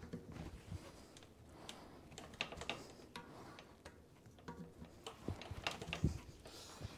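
Faint, irregular light clicks and taps of hands working the rear wheel and hub of a mountain bike in a repair stand, as the wheel and through axle are fitted back in the frame.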